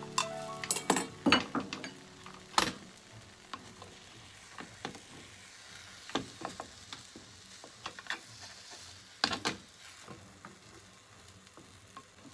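Beaten egg sizzling faintly in a rectangular nonstick tamagoyaki pan, with chopsticks tapping and scraping the pan as the egg is stirred, then a nylon spatula scraping and lifting as the omelet is rolled. Scattered sharp clicks, busiest in the first few seconds and again about nine seconds in.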